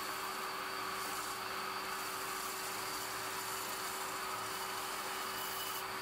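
Myford metal lathe running with a plywood disc on its faceplate, the tool facing the wood: a steady motor hum under the continuous rasp of the cut.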